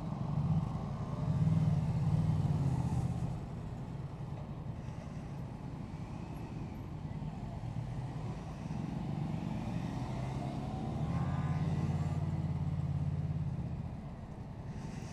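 Motorcycle engine running on the move, its low note swelling as it accelerates about a second in and again about eleven seconds in, then easing off, over wind and road noise.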